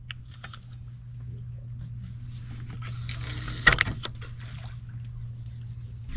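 A boat's motor humming steadily at a low pitch. About three and a half seconds in there is a short rush of noise ending in a sharp click.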